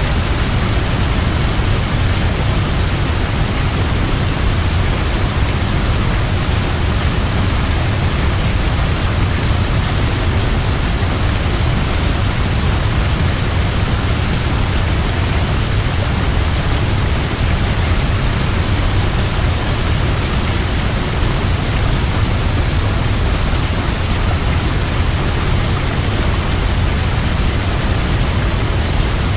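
Waterfall: water pouring and crashing in a steady, loud rush, deep and unbroken throughout.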